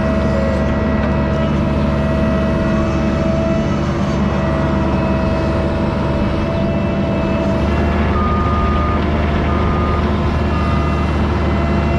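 Engine of construction equipment running steadily, with a backup alarm giving three beeps about a second apart near the end.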